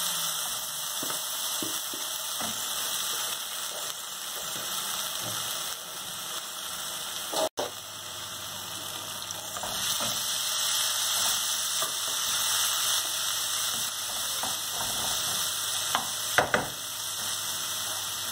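Rice and chopped onion frying in oil in a kadai, a steady sizzle, as a wet spice paste is scraped in from a plastic bowl and stirred with a wooden spatula. A few sharp knocks of the spatula against the pan come near the end.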